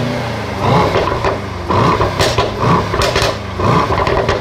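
Mercedes-AMG GT63 S 4-Door Coupé's 4.0-litre V8 revved in short blips, about once a second, each rise in pitch falling straight back, with a few sharp exhaust cracks between the blips.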